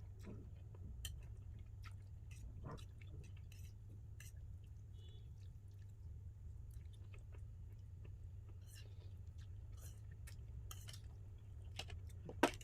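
A person chewing a mouthful of shirataki-noodle spaghetti, with scattered small clicks of cutlery and dishes and one sharp click near the end, over a steady low hum.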